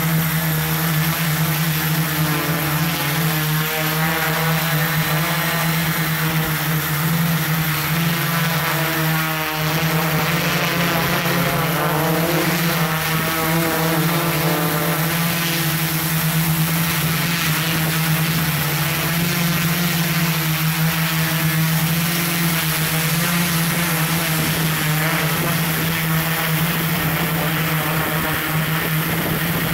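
Camera drone in flight, heard from on board: its propellers and motors hum loudly and evenly, with a hiss of rushing air.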